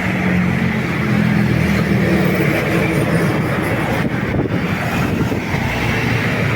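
Motor vehicle engine running amid steady traffic-like noise; the low engine hum fades about three seconds in.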